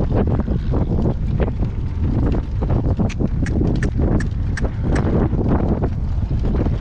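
Wind buffeting the microphone with a steady low rumble. Around the middle comes a run of about six sharp, ringing clicks, evenly spaced: a shod horse's hooves striking hard ground.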